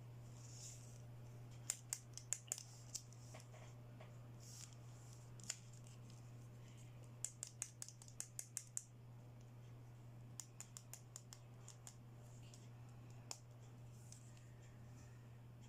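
Small hard plastic toy pieces being handled. Quick runs of sharp little clicks and taps, several a second, come in bursts over a low steady hum.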